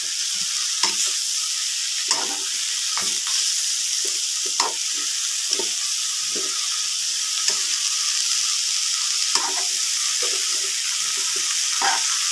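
Broccoli and green beans sizzling in margarine in a metal pan, tossed with metal tongs that clink and scrape irregularly against the pan over a steady frying hiss.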